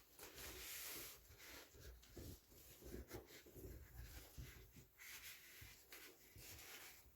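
Faint rustling and light handling noises, with a few soft knocks: folded fabric storage baskets and their packaging being handled.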